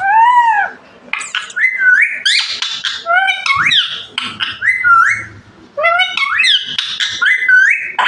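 Male green Indian ringneck parrot vocalizing loudly in a rapid string of short whistled and chattering calls, each sliding up or down in pitch, with a short pause about halfway through.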